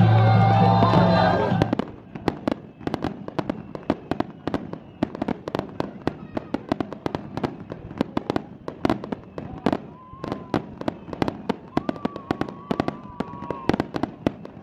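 Loud music with singing cuts off about two seconds in. It gives way to a fireworks finale: rapid, overlapping bangs and cracks, several a second.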